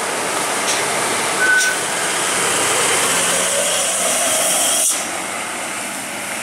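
Loaded cargo truck climbing a steep hairpin bend and passing close by, its engine running under load with a steady rushing noise that swells as it goes past and eases off near the end. A brief high tone sounds about a second and a half in.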